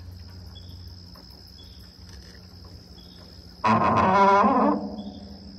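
Electric trolling motor humming steadily, with a thin, steady high insect drone behind it. About four seconds in, a loud pitched call of about a second rises over it.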